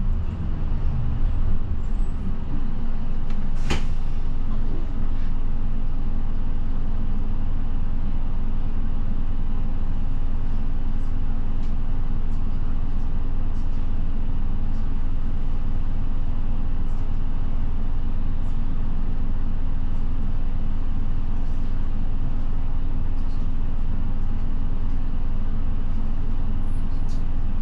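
Route bus's diesel engine heard from inside the cabin, its pitch falling over the first couple of seconds and then running steadily. A single sharp click about four seconds in.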